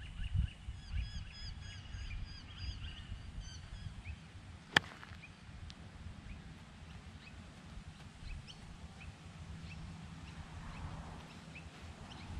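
A single sharp click of a 64-degree wedge striking a golf ball, about five seconds in. Birds chirp in repeated short calls through the first few seconds, over a low rumble of wind on the microphone.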